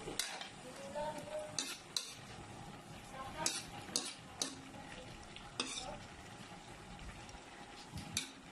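A spatula scraping and clinking against a wok, in about eight irregular strokes, as fried dried anchovies and vegetables are stirred into coconut milk. A faint, steady sizzle runs underneath.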